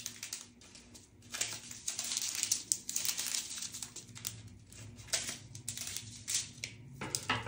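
Small plastic zip bags of diamond painting drills being handled: light, irregular crinkling with small clicks.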